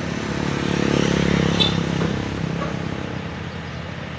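A motor vehicle's engine hum grows to its loudest about a second in and then fades away again, with a faint click in the middle.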